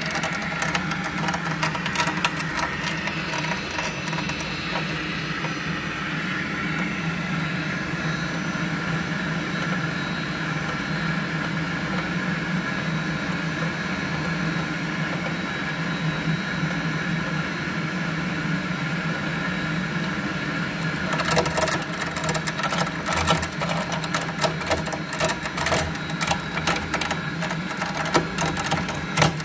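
Buderus gas boiler running with a steady mechanical hum, one of its tones dropping in pitch over the first few seconds. A fast rattling clicking is heard at the very start and again from about two-thirds of the way through.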